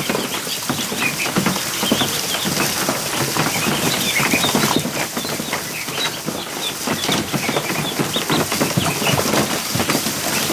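Many ducklings splashing and flapping in a plastic kiddie pool: a dense, uneven patter of small knocks on the plastic, with short high peeps throughout.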